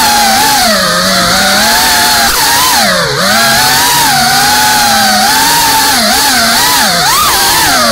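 FPV quadcopter's motors and propellers buzzing, their pitch swinging up and down with the throttle. There is a deep dip in pitch about three seconds in and quick ups and downs near the end.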